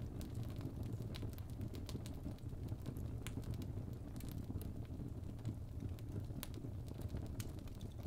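Fireplace fire burning with a steady low rumble and scattered sharp crackles and pops.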